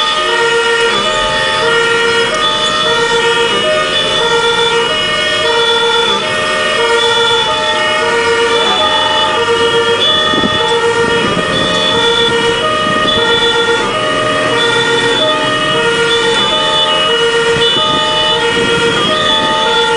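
German fire-engine two-tone siren (Martinshorn) sounding its steady alternating high-low tones, heard from inside the cab, with the truck's engine running underneath.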